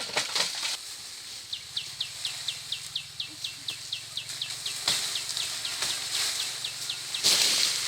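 An animal calling in a rapid, regular series of short, high, falling chirps, about four or five a second, over a faint low hum, with a brief rustling burst near the end.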